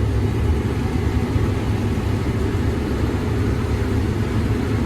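Combine harvester running steadily during corn harvest, an even, low engine drone.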